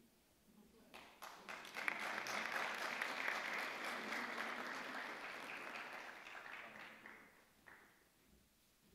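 Audience applauding: a few scattered claps about a second in build quickly into full applause, which then fades away over the last two seconds.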